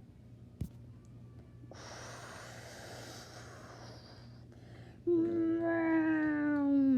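A child making airplane sounds with the voice: a breathy whoosh for a couple of seconds, then a long held vocal tone that slowly falls in pitch. A single click comes just before the whoosh.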